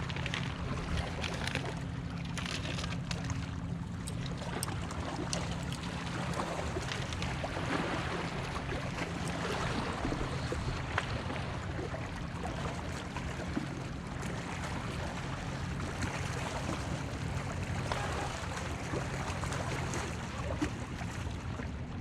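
Steady low hum under an even wash of wind and lapping water, with scattered light clicks and rattles from handling fishing tackle while a lure is rigged on its hook.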